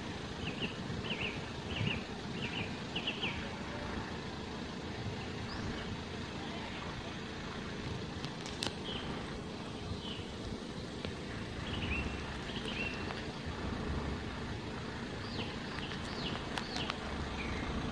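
Steady low rumble of road traffic waiting at the crossing, with small birds chirping in quick runs of short high notes near the start and again in the second half.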